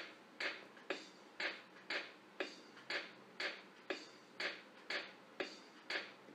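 Background music with a steady percussive beat of about two sharp hits a second.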